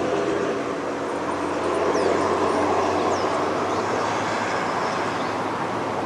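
A motor vehicle running on the road close by: a steady engine noise with a low hum, its pitched note fading in the first second.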